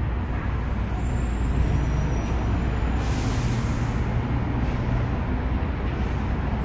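Steady low rumble of background noise, with a short hiss about three seconds in.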